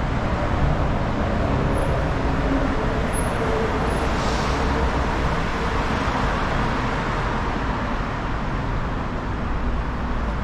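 Steady city street traffic: cars and buses running and passing, with a swell of passing-vehicle noise and a brief hiss about four seconds in.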